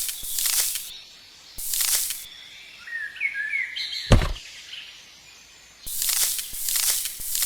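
Repeated short hissing or scraping strokes, about two a second, come in two groups: near the start and again from about six seconds in. Small birds chirp briefly in between, and there is one dull thump about four seconds in.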